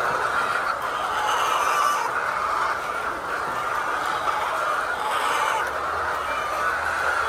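A flock of laying hens clucking, in a steady continuous chatter.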